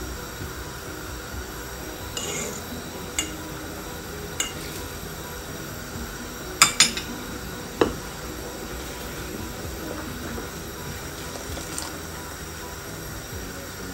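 Sugar syrup bubbling steadily at the boil in an iron wok as it cooks toward one-thread consistency, with a steel spoon clinking against the pan a handful of times, the loudest two clinks close together about halfway through.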